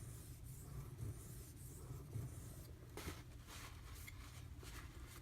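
Knife blade stroked back and forth on a wet Imanishi combo water stone: faint, repeated scraping strokes, about one a second, as stray scratches are worked off the bevel.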